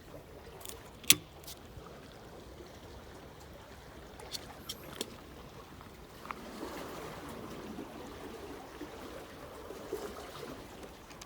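Water trickling and lapping, growing a little louder about six seconds in. A sharp click comes about a second in, and a few lighter clicks follow around four to five seconds.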